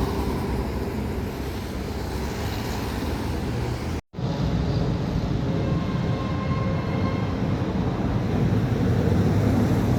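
Steady low rumble of outdoor city street noise, broken by a sudden cut about four seconds in and then carrying on the same.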